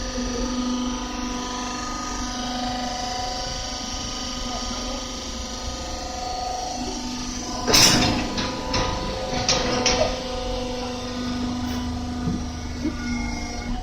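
Automatic carton baler running: a steady machine hum with a whine. A loud clank comes about eight seconds in, followed by several sharp clacks over the next two seconds.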